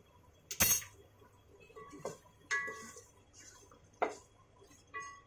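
Ladle knocking and scraping against the side of an aluminium cooking pot while stirring meat in gravy: about five separate clinks, the loudest about half a second in, some with a short metallic ring.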